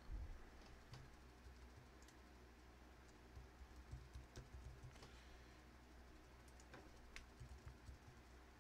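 Faint computer keyboard typing: irregular single keystrokes as an email address is entered.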